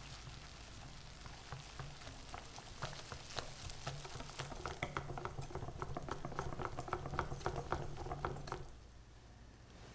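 Balloon whisk with silicone-coated wires beating flour and strawberry powder into a wet yolk batter in a glass bowl: quick, rhythmic wet strokes with light clicks against the glass. It stops abruptly about a second before the end.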